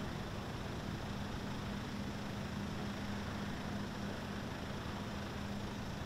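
Drive machinery of a drawbridge with overhead balance beams running as the raised deck is lowered: a steady low hum over an even hiss.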